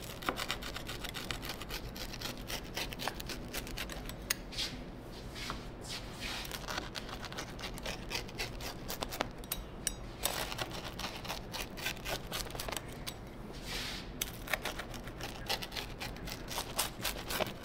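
Pizza wheel cutter rolling through a pizza's crisp, charred crust and scraping on the cutting board: a run of short, scratchy crunches, stroke after stroke.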